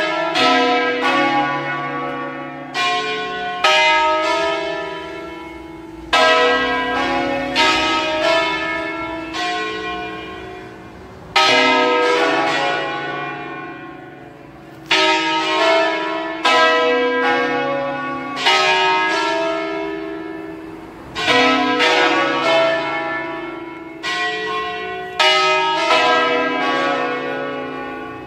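A peal of five swinging church bells tuned to a B major scale, with the tenor on B2. Each bell's stroke follows hard on the last and the long ringing tones overlap. A fresh group of strong strokes comes every two to five seconds, and the sound fades a little between groups.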